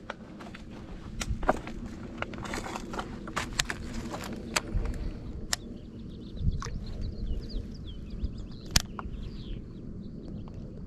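Footsteps and sharp knocks on a rocky bank through the first half, then small birds chirping repeatedly with short rising and falling notes.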